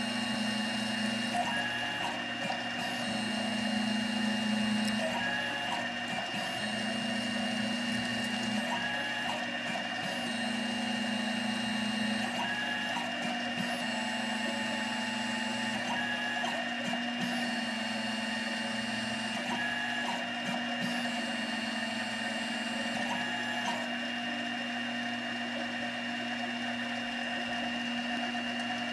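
CNC 7x12 mini lathe cutting a 10-24 thread: the spindle runs steadily under a constant high whine, while the stepper-driven carriage makes repeated threading passes, the cycle repeating every few seconds.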